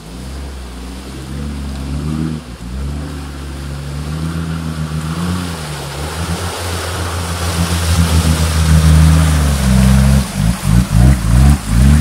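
Off-road 4x4's engine running hard under load through deep mud, with tyres churning and splashing mud and slush. It grows louder as the vehicle approaches, and near the end the sound pulses rapidly on and off.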